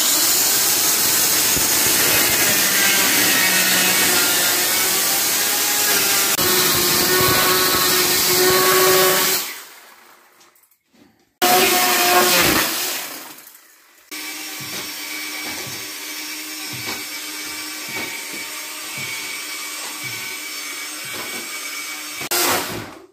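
Electric chainsaw cutting through old wooden floorboards, its motor pitch wavering under the load. It stops about nine seconds in, runs briefly again and winds down with a falling whine, then runs more quietly and steadily for most of the rest.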